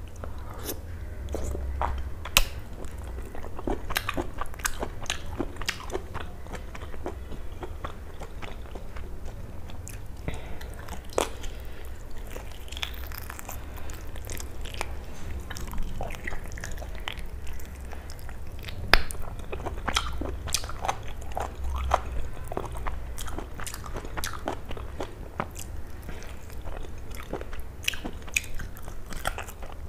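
Close-miked biting and chewing of mutton paya (goat trotter curry) eaten by hand, a run of irregular sharp clicks and crunches from mouth and bone. A low steady hum lies underneath.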